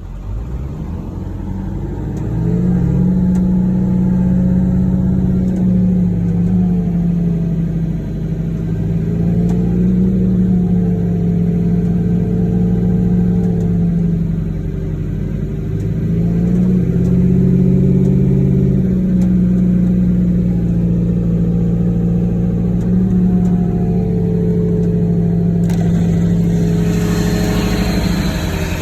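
Ford 7.3 Powerstroke turbo-diesel V8 running, its engine speed slowly rising and falling over several seconds at a time. The owner is chasing an unidentified noise the truck makes in neutral or while driving. A high hiss joins near the end.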